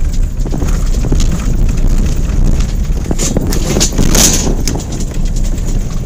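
Off-road 4x4 driving over a rutted dirt track, heard from inside the cab: a steady low rumble of engine and tyres, with a cluster of knocks and rattles about three to four seconds in as the vehicle jolts over bumps.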